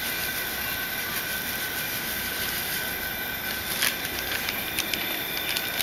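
Propane burner running steadily under a kettle of wort at a full boil: a constant rushing with a faint steady high tone, and a short click about four seconds in.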